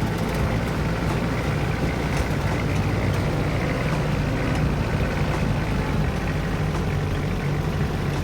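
A vehicle's engine running steadily, a constant low hum with no change in speed or load.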